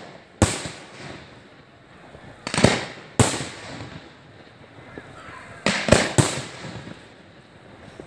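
Fireworks exploding: about six loud bangs at irregular intervals, two close together near the middle and three in quick succession near the end, each trailing off in a rumbling echo.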